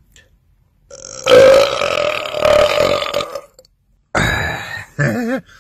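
A man's long, drawn-out belch lasting about two and a half seconds at a steady pitch, followed about a second later by a shorter vocal sound.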